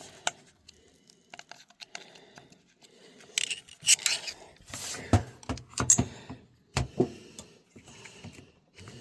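Small metal hand tools clinking and scraping while being handled, with sharper knocks about five and seven seconds in.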